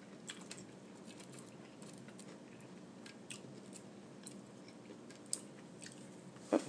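Someone chewing and biting food close to the microphone: faint mouth sounds with scattered small crunches and clicks, a sharper click about five seconds in, and a brief louder sound near the end.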